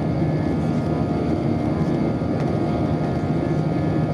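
Airbus A320's IAE V2500 turbofan engines heard from inside the cabin over the wing during the climb after takeoff: a steady rushing noise with a constant low hum and a few fainter steady tones above it.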